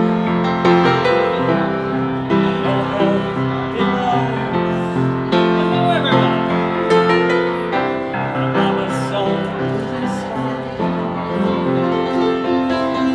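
Live piano playing, a steady run of chords and melody notes.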